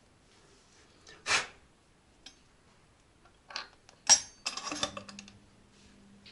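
Cloth rubbing and handling noises as a rag wipes a polypropylene heating pipe dry before fusion welding: a short rustle, more rubbing, then a sharp ringing clink about four seconds in and a quick clatter of small knocks. A faint steady low hum starts just after the clink.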